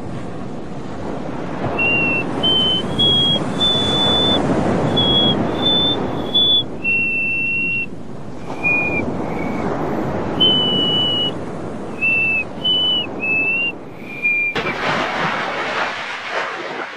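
A person whistling a slow tune, one held note after another, over the steady wash of sea waves. A louder rush of noise comes in near the end.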